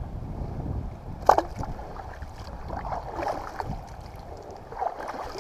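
Water sloshing against a kayak hull, with wind rumbling on the microphone. A single sharp knock comes about a second in, and small splashy sounds follow.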